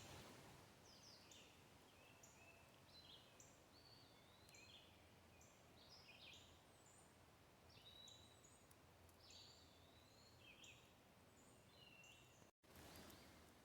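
Faint birdsong: many short chirps and quick whistled notes, some sliding up or down, from several small birds, over a faint low hiss.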